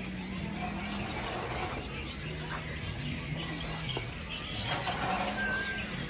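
Outdoor farm ambience: a steady low hum and general background murmur, with faint bird chirps and a soft click about four seconds in.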